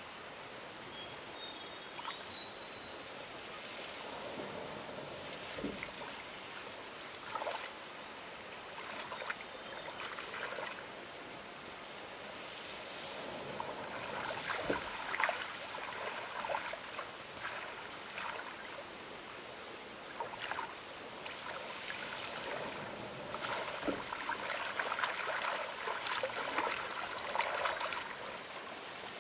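Shallow muddy water splashing and sloshing as a person wades and works his hands through it, the splashing growing busier and louder about halfway through. A steady high-pitched hum runs underneath.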